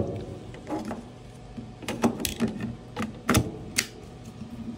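Plastic clicks and knocks as a battery pack is handled and pushed into the handle of a DeWalt DCF682 cordless screwdriver: about half a dozen sharp clicks at uneven spacing.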